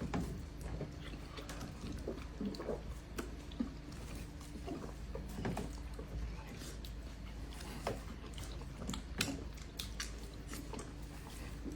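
People eating fast: chewing, lip smacking and the clink of cutlery, in short irregular sounds over a steady low hum.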